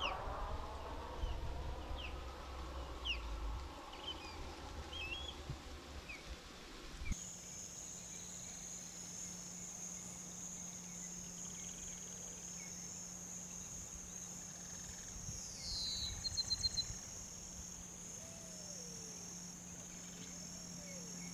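Tropical wetland ambience: scattered short bird chirps, then after a sudden change about seven seconds in a steady high-pitched insect drone with a low steady hum beneath it. About halfway through a bird gives a falling call ending in a quick trill, and a few lower falling calls come near the end.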